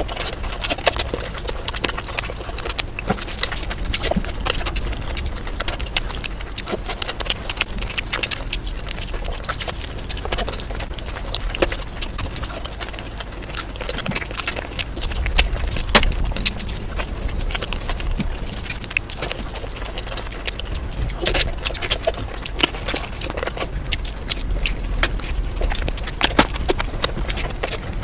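Close-miked eating sounds: a person chewing and smacking, with many short wet clicks throughout over a low steady rumble.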